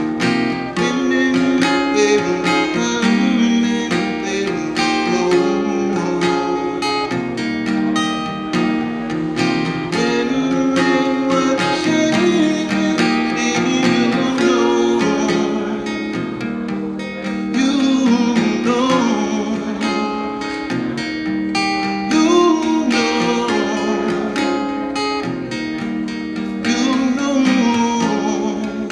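Acoustic guitar strummed steadily in an instrumental passage, with a wordless voice joining in now and then.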